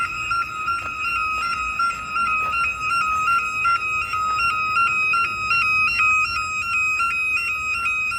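Electronic fire alarm sounder going off during a test: a loud, continuous two-tone signal that alternates rapidly between two close pitches.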